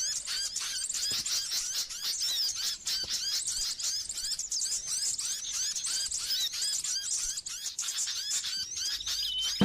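Songbird singing a rapid, continuous twitter of short high chirps, several a second.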